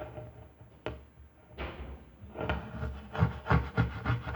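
Fluffy slime made with glue and shaving foam being squeezed and played with by hand: a single sharp click about a second in, then a dense run of irregular crackling and popping from about two and a half seconds on.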